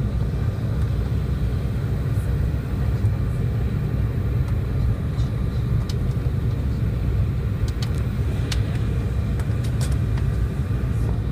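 Steady low vehicle rumble that holds an even level throughout, with a few faint clicks in the second half.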